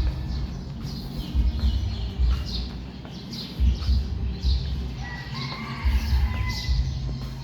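Small birds chirping in quick, falling notes, over a low rumble that swells about every two seconds.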